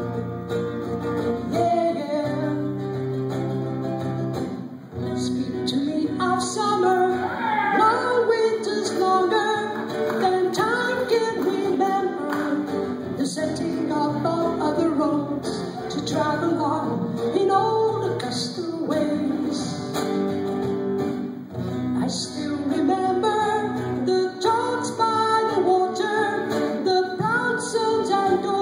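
Live solo song: a man singing into a microphone while playing an amplified acoustic guitar.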